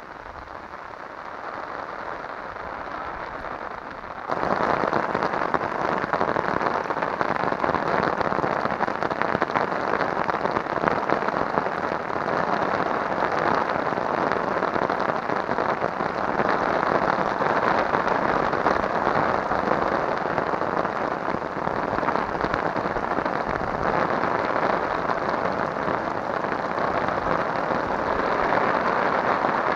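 Rain falling steadily, a dense even hiss that suddenly becomes much louder about four seconds in and stays that way.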